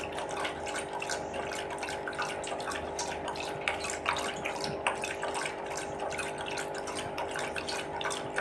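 Dog lapping water from a stainless steel bowl: quick, irregular wet laps and splashes. A steady hum runs underneath.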